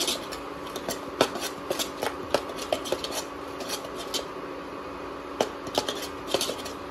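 A metal spoon stirring thick masala in a kadhai, scraping and clicking irregularly against the pan, over a steady low hum.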